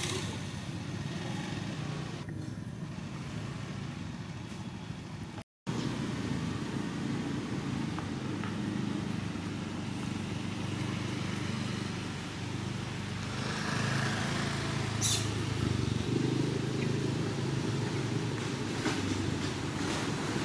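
A motor vehicle engine running steadily, a low rumble that shifts slightly in pitch. The sound drops out completely for a moment about five and a half seconds in.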